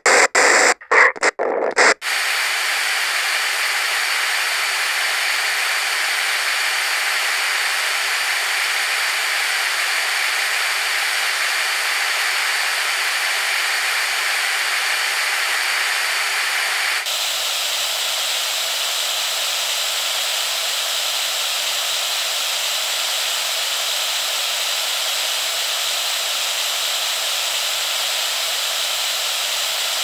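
Walkie-talkie static: for about two seconds it cuts in and out in short choppy bursts, then settles into a steady open-channel hiss. About halfway through it switches to a different, slightly fuller static.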